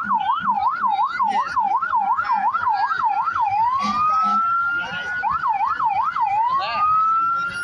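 Law-enforcement vehicle siren going by, switching between a fast yelp of about three up-and-down sweeps a second and a slower rising wail, with a second short burst of yelp about five seconds in.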